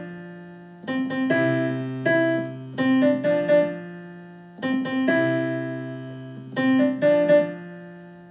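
Keyboard in a piano voice played with both hands: short phrases of quick right-hand notes over held low left-hand notes. Each phrase is left to ring and fade before the next begins, at a brisk practice tempo.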